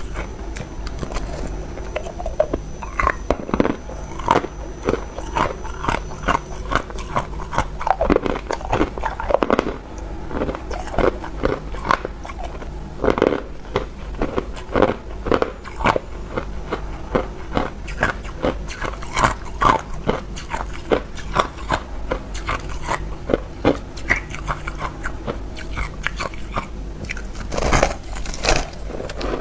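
Ice being chewed and crunched in the mouth: a dense, irregular run of sharp crackling crunches. Near the end comes a louder bite into a lump of packed crushed ice.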